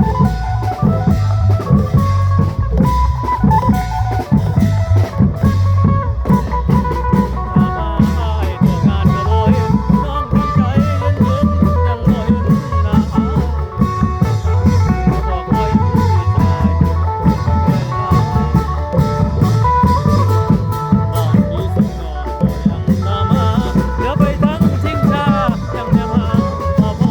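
Isan klong yao long-drum band playing a modernised old phin tune: steady, busy drumming under a plucked phin melody.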